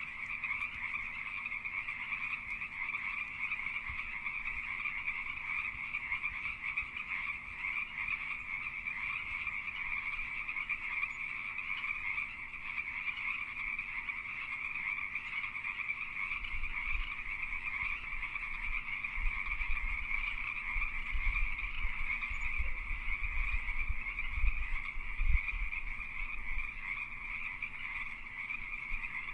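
A dense chorus of Pacific tree frogs (Pacific chorus frogs): many males calling together in breeding season, their calls merging into one steady, unbroken din. A low rumble joins underneath a little past halfway and fades out near the end.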